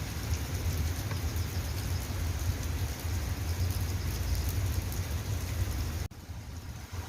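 Steady rain falling, with a low rumble underneath. The sound drops off abruptly about six seconds in and comes back just before the end.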